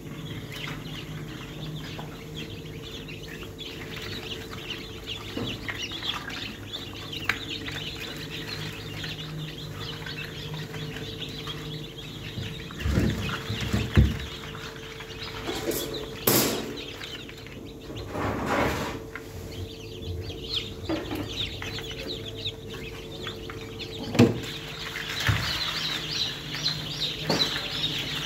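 A crowd of newly hatched chicks peeping constantly in many short high calls, over the steady hum of the egg incubator. Several loud knocks and bumps come in the middle, with more around three-quarters of the way through.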